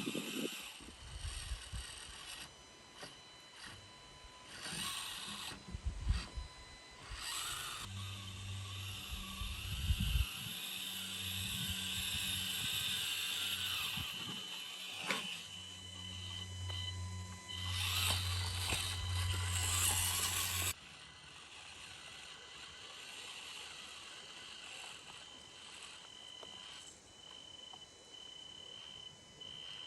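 Axial SCX24 micro RC crawler's small electric motor and gear train whining as it crawls, starting and stopping in short pulses, with a few sharp knocks. A low hum runs under it for a stretch and cuts off suddenly about two-thirds of the way through.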